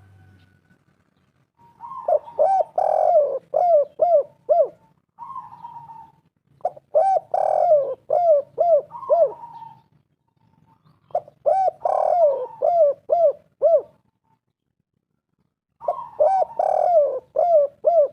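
Spotted dove cooing: four phrases, each a quick run of six to eight hooked coo notes, repeated about every four to five seconds with short pauses between.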